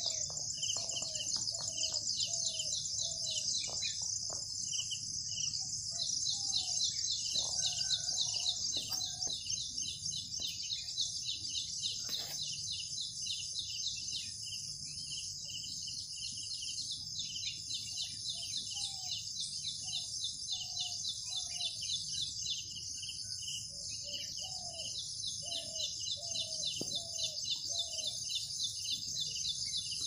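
A steady high-pitched chorus of insects, finely pulsing throughout, with a bird giving several runs of short, low, repeated calls.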